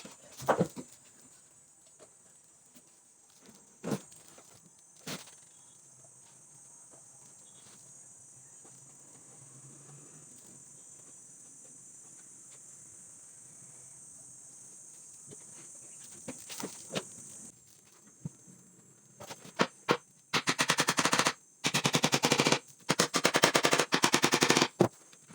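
A handheld power tool rattling rapidly in several bursts of about a second each, starting past the middle. Before that there are a few separate knocks of work on wood, over a faint steady high hiss.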